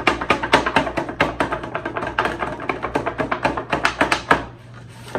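Wire whisk knocking and scraping against a disposable aluminium foil loaf pan while stirring a stiff ice-cream-and-flour batter, a fast irregular clatter that stops about four seconds in. The batter is too thick for the whisk to mix.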